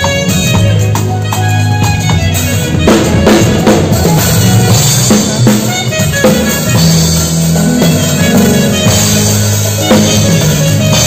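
Band music with a drum kit keeping a steady beat over sustained bass notes.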